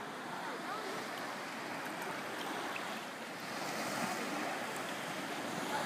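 Shallow sea water lapping and sloshing right at the microphone, with small gurgles, getting a little louder and brighter about halfway through.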